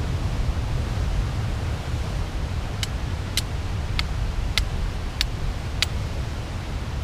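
Dragonfire ferrocerium fire-starter rod being struck six times at an even pace, about every half second from about three seconds in, each strike a short sharp high scrape, over a steady low rumble.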